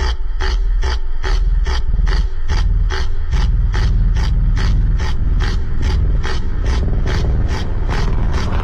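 Background music with a fast, steady beat of about four sharp hits a second over heavy bass, the bass growing fuller about two and a half seconds in.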